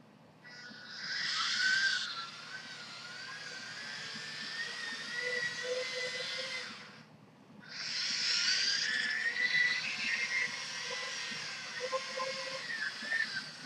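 Dagu RP5 tracked robot chassis driving, its small electric gear motors whining with a pitch that wavers up and down as the speed changes. The whine stops briefly about seven seconds in, then starts again.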